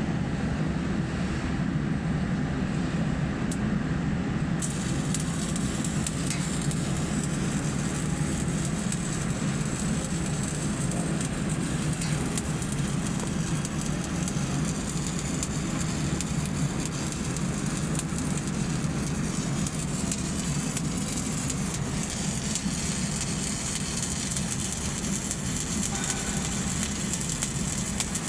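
Electric arc welding on a pipe: the arc crackles and sizzles steadily from about five seconds in, over a constant low hum.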